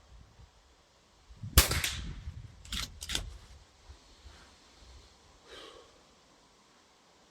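A single shot from an FX Panthera Hunter Compact PCP air rifle: one sharp crack with a short ringing tail about one and a half seconds in. It is followed about a second later by two sharp clicks in quick succession.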